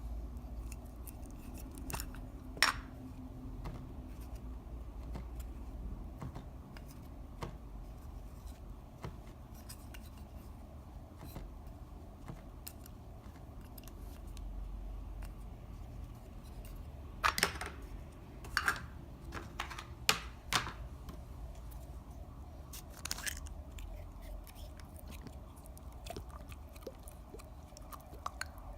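Clear slime being worked and mixed by hand: many small sticky clicks and crackles, with a few louder pops and snaps, most of them in a cluster past the middle.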